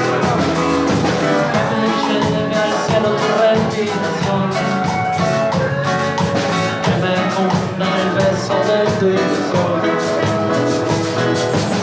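Live cumbia-reggae band playing: saxophone over drum kit, guitars and bass guitar, with a steady beat.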